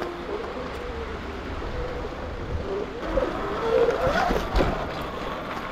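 Sur-Ron X electric dirt bike's motor whining under way, its pitch rising and falling a few seconds in, over a steady low rumble.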